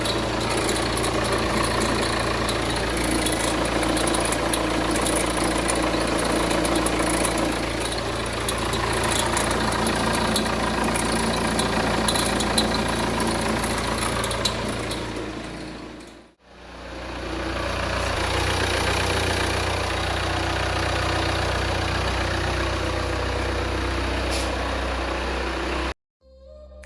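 Jeep Renegade diesel engine idling steadily, with light irregular clicks over it in the first half; the sound fades out about sixteen seconds in and fades back in. This is the noise the owner is showing, of unstated cause.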